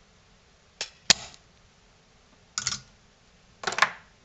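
Sharp mechanical clicks and clatters: a spring-loaded desoldering pump snapping once, the loudest and sharpest click, about a second in, as it sucks solder off a connector pin, followed by two clusters of smaller clicks and knocks of the pump and tools being handled.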